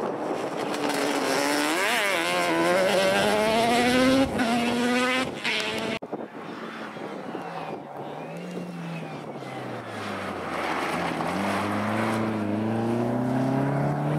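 Racing quad bike's engine accelerating hard close by, revs climbing with a gear change about four seconds in, breaking off abruptly about six seconds in. Then an open-wheeled car's engine, lower in pitch and quieter at first, rising again as it accelerates near the end.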